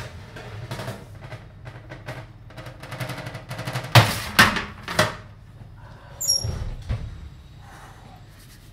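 A metal baking tray is taken out of an oven and set down on a kitchen counter: a run of light clicks and scrapes, then three sharp metallic clanks about four to five seconds in. A brief high squeak follows a second later.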